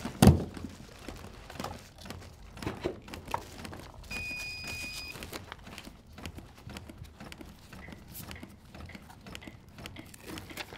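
Chest compressions on a CPR training manikin: repeated clicks and knocks from hands pressing the manikin's chest, with rustling of gear, and a sharp knock just after the start. About four seconds in, a steady electronic beep sounds for about a second.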